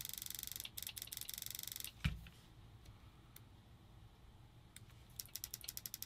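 Electronic paintball marker (WDP Angel Speed) cycling rapidly, a fast even train of mechanical clicks at about a dozen a second. The clicks stop with a single knock about two seconds in and start again near the end.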